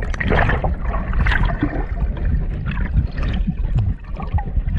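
Sea water splashing and sloshing in irregular bursts over a steady low rumble.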